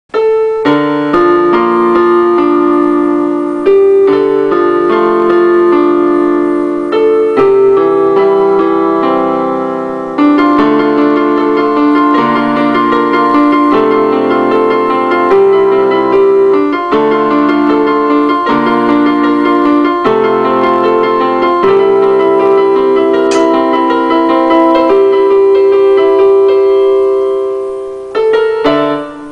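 Solo piano music, a slow melody over sustained chords, starting at once and dipping in level near the end.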